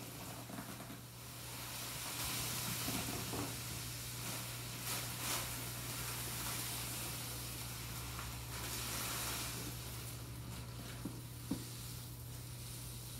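Granular cat litter pouring from a bag into a plastic litter box: a steady hiss of granules streaming onto the plastic and onto the litter already in it. It grows louder about two seconds in and eases later, with a couple of small clicks near the end.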